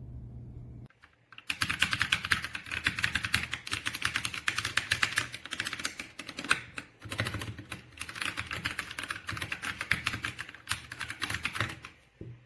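Fast typing on a mechanical keyboard fitted with Akko V3 Penguin tactile silent switches: a dense, rapid run of keystrokes starting about a second and a half in, with a short pause midway. Before the typing, a steady low hum plays and cuts off.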